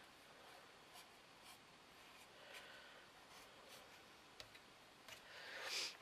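Faint handling of small paint bottles on a table: soft rubbing and light clicks as a bottle is opened, with a sharper click about four seconds in and a rubbing noise that swells for about a second near the end.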